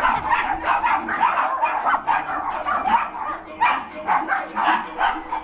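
A dog barking in quick, repeated yaps, several a second, without pause.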